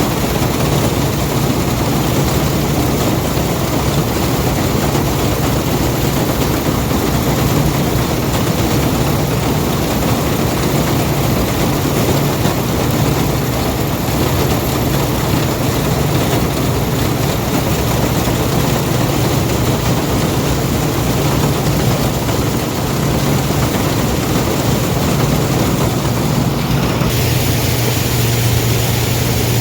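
International 403 combine running steadily while harvesting soybeans: a constant, loud engine hum mixed with the noise of the threshing machinery. About 27 seconds in, the sound's tone shifts abruptly while the level stays the same.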